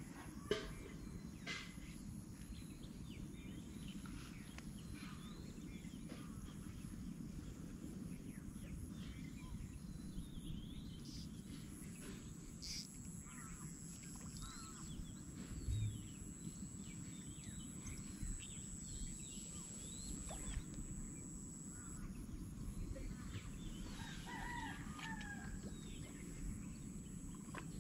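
Outdoor ambience with scattered bird calls, and a steady high-pitched drone through the middle stretch. A few soft knocks sound over a low background rumble.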